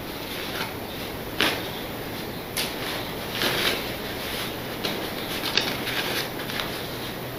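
Paper being handled, torn and pressed down: several short rustles and crinkles spread through a few seconds, with a low steady background hum.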